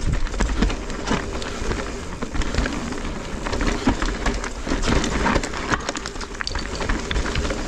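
Mountain bike riding down a rocky trail: the tyres run over stones and the bike clatters with many irregular knocks and rattles, over a steady low rumble.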